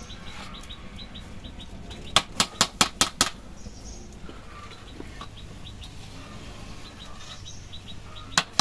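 Wire skimmer rapped on the rim of a large steaming cooking pot to knock off the froth: a quick run of about six sharp taps about two seconds in, and a few more at the end.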